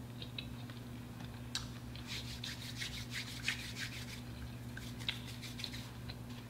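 Hands rubbing briskly back and forth against each other, a quick scratchy rustle of skin on skin lasting about three seconds, preceded by a few faint wet mouth clicks from licking the fingers.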